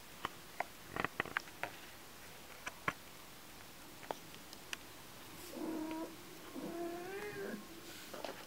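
Kitten mewing twice, about halfway through and again a second later, the second call wavering up and down in pitch. A few small sharp clicks come before the calls.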